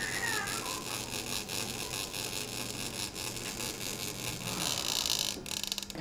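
Film viewer running: a steady hiss with irregular crackling clicks over a low hum. The lowest hum stops about four and a half seconds in, and the clicking thickens near the end.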